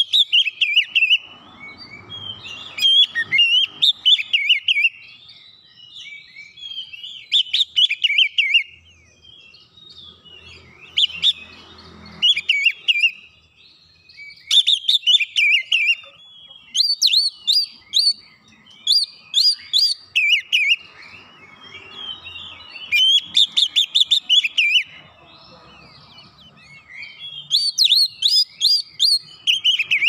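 Oriental magpie-robin singing: loud, fast, varied phrases of sweet notes and sharp chattering, delivered in bursts of a second or two with short pauses between them.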